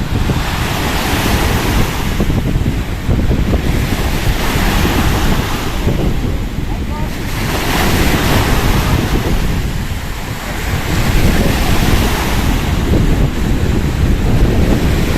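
Wind buffeting the microphone with a heavy rumble, over a rushing wash of lake water that swells and fades every few seconds.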